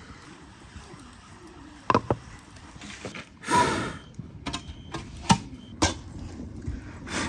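A few sharp knocks and clinks of a metal samovar and its chimney pipe being handled, with one short burst of blowing into the pipe about halfway through.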